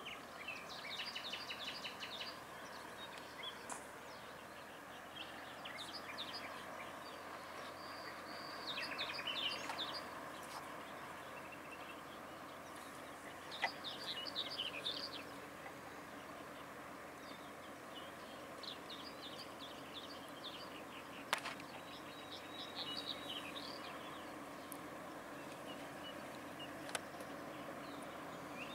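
Small songbirds chirping and singing in short bursts, about half a dozen times, over a faint steady rumble that grows slightly toward the end as a freight train approaches in the distance.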